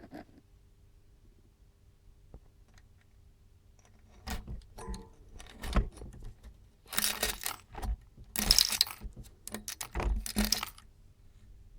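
Small loose metal parts clinking and rattling as they are handled and shuffled, in a run of light clicks with three louder jangling spells.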